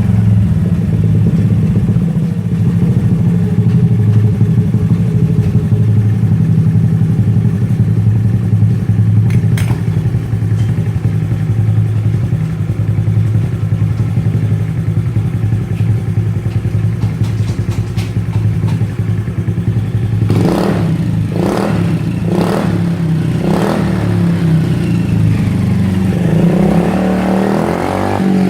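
Honda Dio scooter fitted with a LeoVince Cobra aftermarket silencer, idling steadily. About two-thirds of the way in it is given a run of quick throttle blips, then revved once more near the end.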